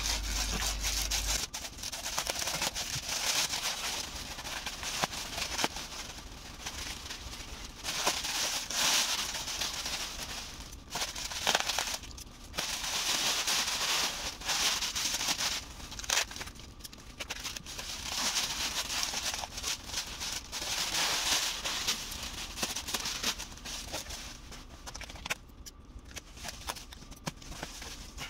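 Bubble wrap and clear plastic packaging rustling and crinkling as it is handled and pulled off, in repeated bursts of a few seconds with quieter gaps between.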